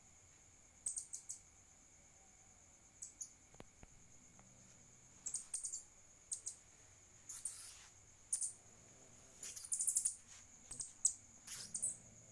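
Rodent squeaking in short, high-pitched bursts, a few squeaks at a time, in clusters every second or so; distress squeaks of a rat or mouse under attack by cats.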